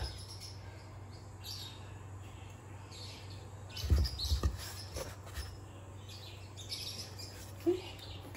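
A hand pressing and shifting a flour tortilla in a nonstick pan, with a few soft knocks about four seconds in, over a steady low hum.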